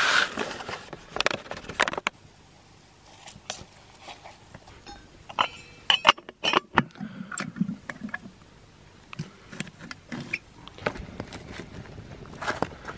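Clinks, knocks and taps of camp cooking gear being handled, with a metal billy among it. There is a dense rush of noise in the first two seconds, then scattered sharp clicks and clatters.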